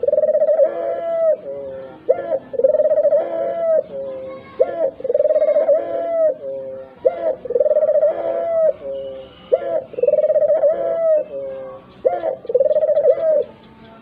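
Ringneck dove (puter) cooing, one short note then a longer held coo, repeated six times about two seconds apart.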